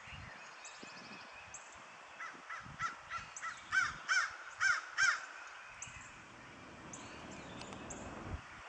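Crow cawing in a quick run of about nine short calls between two and five seconds in, the last few loudest, over faint rustling of dry leaves underfoot.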